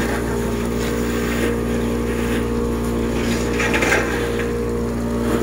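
An engine running steadily at constant speed, an even drone.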